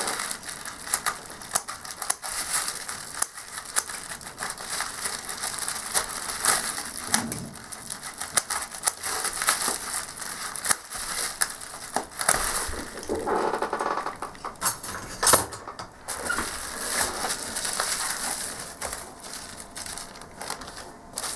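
Plastic packaging crinkling and rustling as it is handled, with scattered sharp clicks and knocks and one louder click about two-thirds of the way through.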